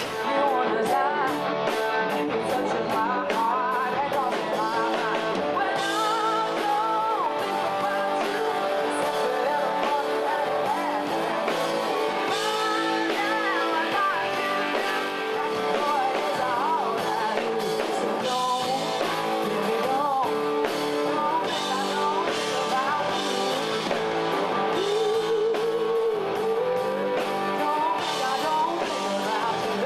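Rock song with a singing voice over electric guitar and drums.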